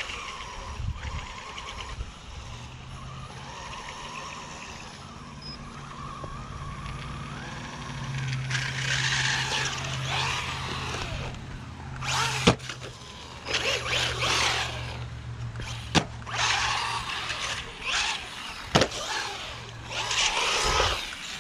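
Bezgar HM124 brushless 1/12-scale RC car driving over rough ground. Its tires scrabble in repeated bursts from about eight seconds in, with several sharp knocks, over a steady low hum.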